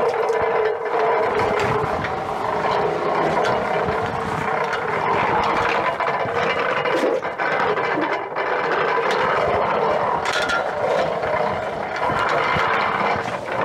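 Hand-cranked cast-iron rubber sheeting roller mill running: its gears and grooved rollers turn steadily as a sheet of rubber is pressed through.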